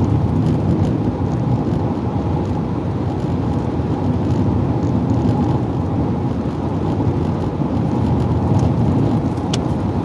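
Steady road and engine noise from inside a car's cabin while cruising at highway speed.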